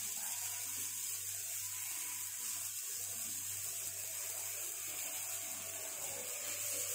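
Steady hiss with a low hum underneath, unchanging and without any distinct knocks or clicks.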